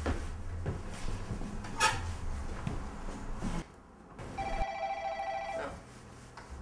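A telephone rings once, a steady ring lasting about a second, coming in about four and a half seconds in. Before it there are soft knocks and rustling.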